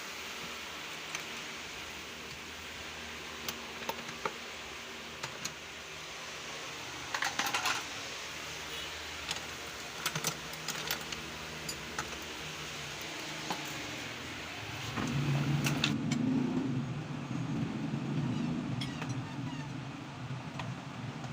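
Small metal parts and hand tools clicking and clinking while a car's electric cooling fan motor is worked on, over a steady background hum. There is a short clattering spell about a third of the way in, and a louder low hum starts about three-quarters of the way through.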